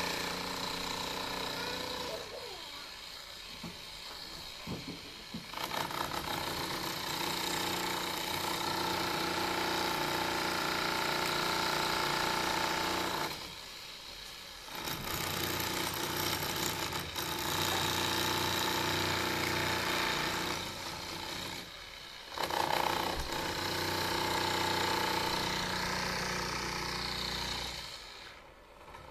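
Corded electric demolition hammer chiselling into a concrete slab. It runs in several long stretches with short pauses between them and stops near the end.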